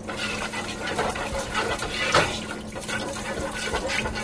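A spoon stirring rice and water in a cooking pot: the liquid sloshes, with irregular scrapes and clicks against the pot.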